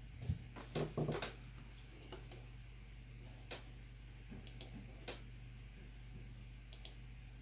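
Key and touchpad-button clicks on an HP EliteBook 8470p laptop while its BIOS setup menus are navigated. There is a quick run of several clicks in the first second or so, then single clicks every second or so, over a steady low hum.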